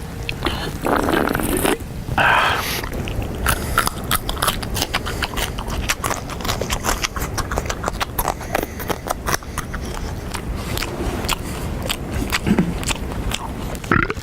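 Loud, open-mouthed chewing and crunching of food close by, many sharp crunches in quick, irregular succession.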